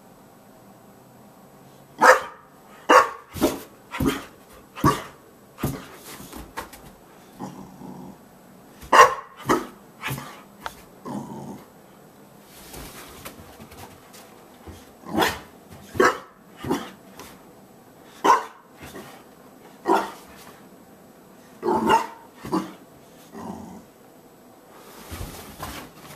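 Boxer dog barking: loud, sharp single barks about a second apart, in several bouts with short pauses between them.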